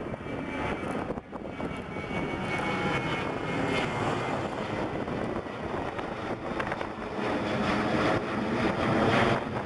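Jet noise from a Boeing 737-700's CFM56-7B turbofan engines as the airliner passes low overhead: a steady rushing sound that grows louder and peaks near the end.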